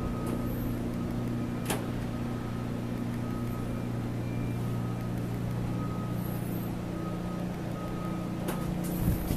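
Steady low engine drone from the high-speed catamaran ferry Ocean Arrow as it pulls away from the pier, with one sharp click a little under two seconds in.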